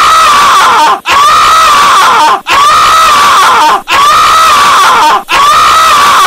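A cartoon character's scream of pain at the scalding shower water, one identical scream played over and over, about five times back to back at roughly one-and-a-half-second intervals. It is extremely loud, near the top of the volume range.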